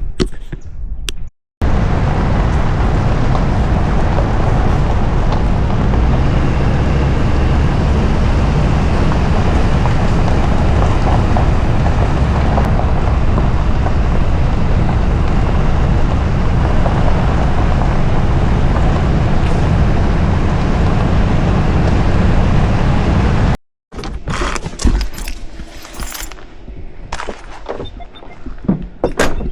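Steady engine and road noise of a vehicle being driven. It stops abruptly near the end, giving way to scattered footsteps and knocks.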